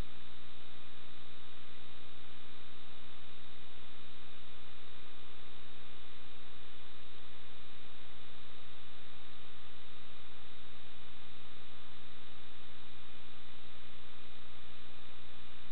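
Steady, unchanging hum with several fixed tones under an even hiss.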